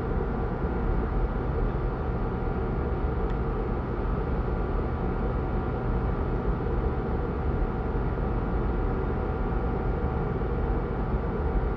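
A steady mechanical hum and hiss, even throughout, with a few faint steady tones in it; no distinct handling sounds stand out.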